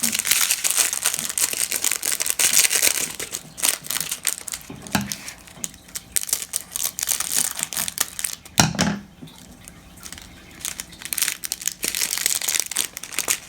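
A small packet of glow-in-the-dark star confetti crinkling as it is handled and torn open, with two soft thumps, and a quieter pause a little after the middle.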